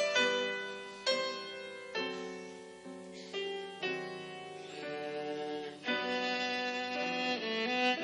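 Piano and violin playing a classical piece. Piano chords are struck about once a second, and in the second half long held notes sound over them.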